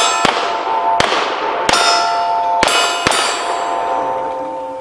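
Pistol shots fired at steel plates, about five in quick, uneven succession, each hit followed by the clang of the plate ringing. The ringing fades out over the last second or so.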